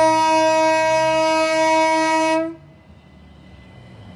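Class 377 Electrostar electric train sounding the low note of its two-tone horn, held steady for about two and a half seconds before it cuts off. The quieter rumble of the train running into the platform follows.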